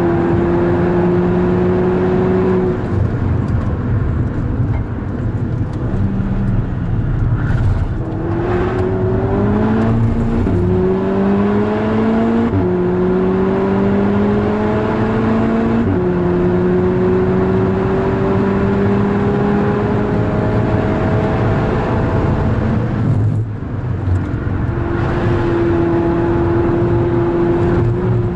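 Volkswagen Golf 6R's turbocharged four-cylinder engine under hard acceleration on track, its pitch climbing in steps with several quick upshifts in the middle, then holding high and steady. A brief lift about three quarters of the way through.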